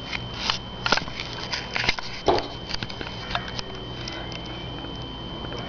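A bird striking and tapping against window glass: a string of irregular light taps and clicks, with one louder knock a little over two seconds in.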